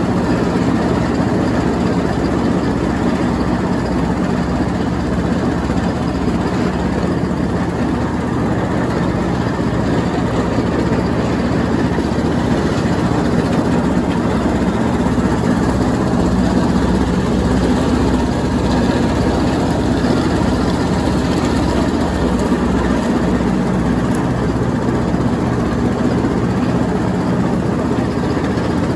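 Troy-Bilt Bronco riding lawnmower running steadily with its mower deck shredding leaves.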